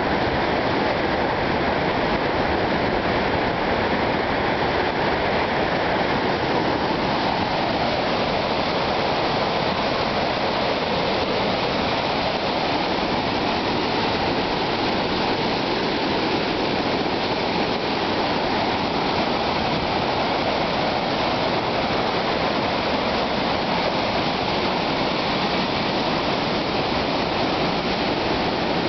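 Swollen waterfall, its water rushing steadily in flood.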